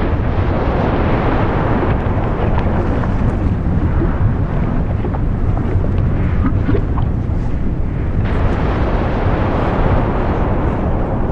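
Volcanic eruption: a continuous deep rumble with scattered faint crackles. The sound changes abruptly about eight seconds in.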